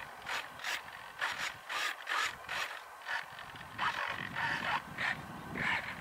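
Servos of a Durafly Tundra RC plane whirring in about a dozen short, irregular bursts as they move the control surfaces in answer to the transmitter during a range test.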